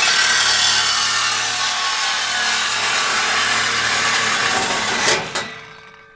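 Power saw cutting through steel exhaust pipe with a loud, steady, harsh noise. It stops about five seconds in with a sharp click, then fades out.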